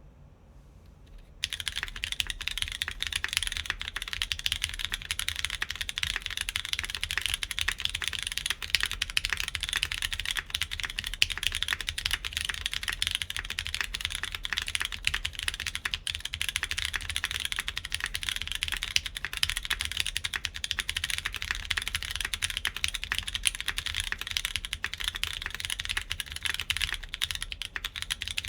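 Continuous fast typing on a mechanical keyboard with lubed Cherry MX Brown switches on an aluminium plate, a dense run of clicky keystrokes starting about a second and a half in.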